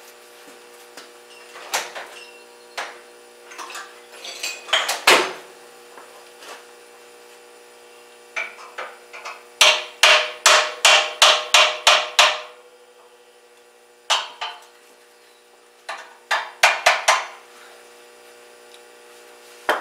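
Sharp metal-on-metal knocks and taps on a steel tractor wheel rim as a patch piece is worked into place under vise-grip clamps. A few single knocks come first, then a quick run of about eight strikes around the middle and a shorter cluster near the end.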